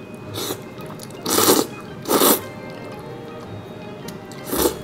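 A person slurping sauce-coated noodles with chopsticks: three loud sucking slurps, two close together in the first half and one near the end, with a fainter one just after the start.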